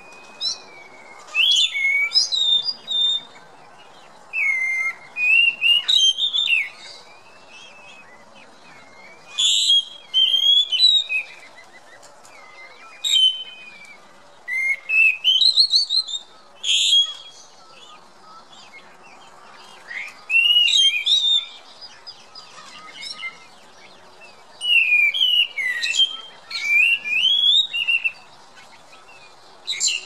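A thrush singing: phrases of clear, varied whistled notes that rise, fall and warble, each lasting one to three seconds, with pauses of a few seconds between them.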